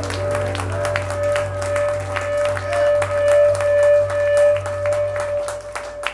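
Live band's closing sustained note held steady over a low drone, with the audience clapping over it; the music stops near the end.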